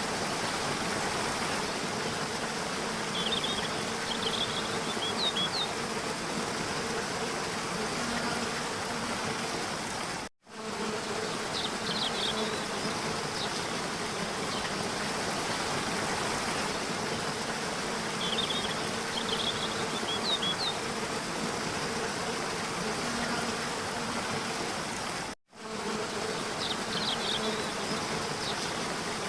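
Steady buzzing of insects over a noisy outdoor background, with short high bird chirps every several seconds. The sound drops out briefly twice, about fifteen seconds apart, and the same pattern starts over each time.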